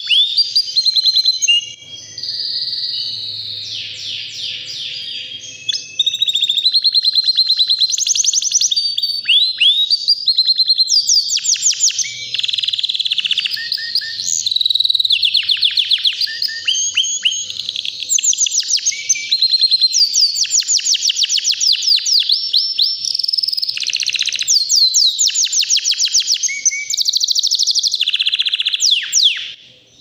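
White domestic canary singing a long, loud song of rapid trills and rolls, fast runs of repeated notes that change speed and pitch, broken by a few short pauses. The song stops just at the end.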